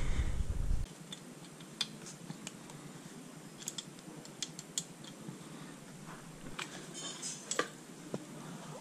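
Scattered light clicks and taps of metal parts being handled while working on a pit bike's carburettor. A low rumble cuts off suddenly about a second in.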